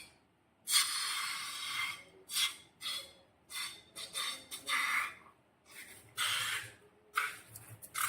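Slime-making materials being handled, giving about a dozen short, irregular bursts of hissy rubbing and scraping noise, the longest lasting about a second near the start.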